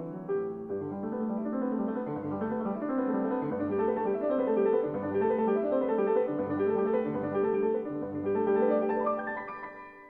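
Background piano music: a flowing run of notes over a low note repeating about once a second, fading away near the end.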